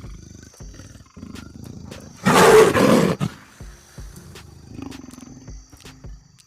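A loud animal roar lasting about a second, played as an AR animal's sound effect, over background music with a steady beat.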